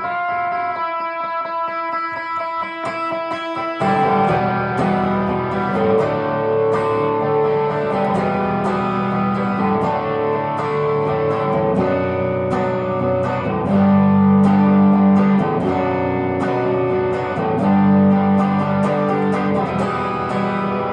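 Electric guitar, a 1968 Gibson SG Junior with a single P90 pickup, played through an amplifier: a picked single-note melody, then about four seconds in louder, fuller playing with heavier low notes.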